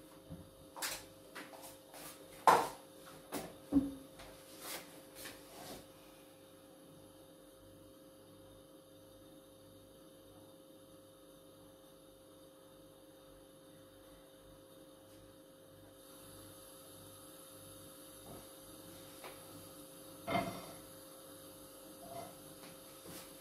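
Kitchen work sounds: a run of knocks and taps over the first six seconds, the loudest about two and a half seconds in, then a steady electrical hum, with two more knocks near the end.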